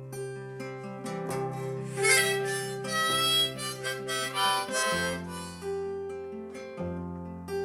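Instrumental break of a folk song: a harmonica plays a solo over strummed acoustic guitar, loudest about two to five seconds in.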